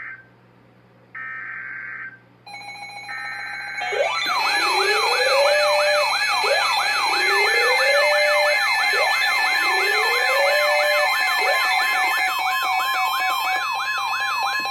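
Emergency Alert System tones ahead of a tornado warning. First come short bursts of digital header data, then a loud layered alarm: steady attention tones, a fast warbling siren-like sweep and a slower rising whoop that repeats about every two and a half seconds.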